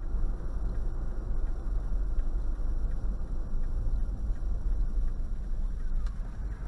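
Steady low road and engine noise of a car driving, heard from inside the cabin by a dashcam.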